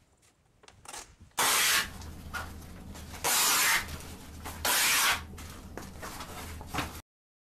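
Strip-cut paper shredder running with a low motor hum, shredding painted paper into strips. Three loud bursts of cutting come as sheets are fed through, and the sound cuts off abruptly near the end.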